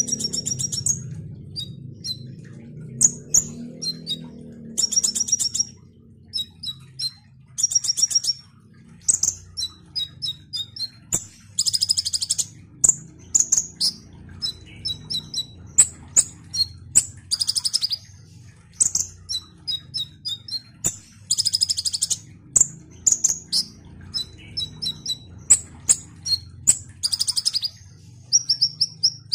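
A caged male kolibri ninja sunbird singing in full, continual song. It gives high, thin chirps mixed with quick rattling trills in repeated bursts every second or two, over a faint steady low hum.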